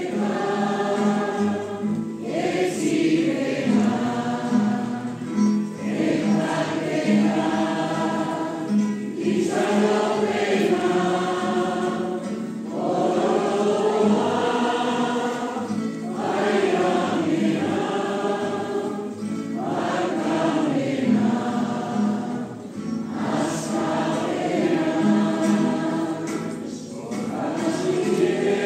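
A churchful of people singing a Basque hymn for peace together, in sung phrases of a few seconds with short breaths between.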